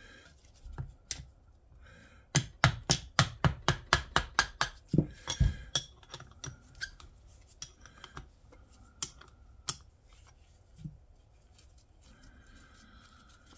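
A spanner working loose the oil fill cap on a Honda GL1000 Goldwing's aluminium final drive casing: a quick run of sharp metallic clicks, about five a second for some three seconds, then a few scattered clicks.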